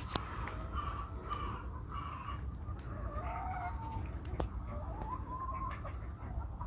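Free-range hens clucking with short calls, some rising or falling in pitch.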